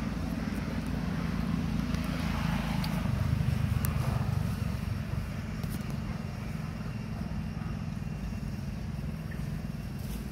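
A steady low engine rumble, swelling about three seconds in and then easing off.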